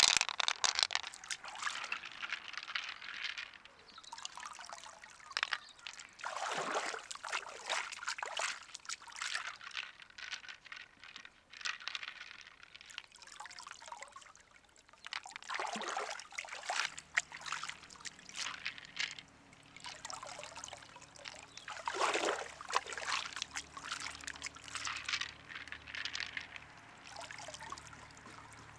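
Stream water sloshing and trickling as a clam shell full of pearls is dipped and swirled in a shallow stream to rinse them, in irregular repeated surges of splashing. A faint low steady hum comes in about halfway through.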